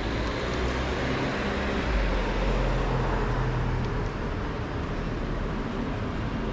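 Road traffic on a city avenue: cars driving past in a steady rumble, swelling as a heavier vehicle passes about two seconds in.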